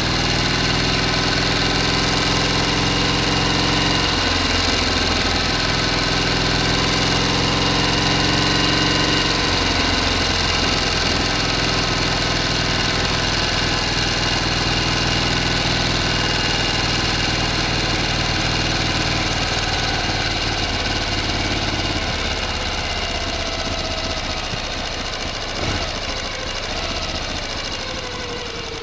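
A motor running continuously, with a steady high whine over its low running note. Its low note shifts a few times, and in the last several seconds it runs a little quieter with a falling tone.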